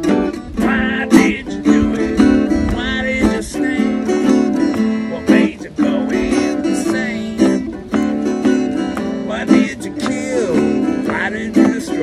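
Acoustic guitar and a smaller plucked string instrument playing together, an instrumental passage of quick picked and strummed notes.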